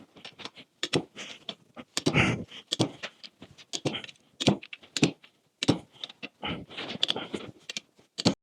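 Sharp metallic clicks and knocks at irregular intervals from a wrench tightening the spindle bolts on a Dana 30 front axle steering knuckle, with brief rattles of tool handling in between.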